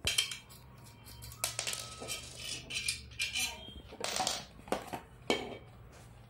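Small metal screws and nuts clinking, with a metal tube and a plastic handle knocking, while a baby walker's push handle is put together: a string of short clicks and rattles.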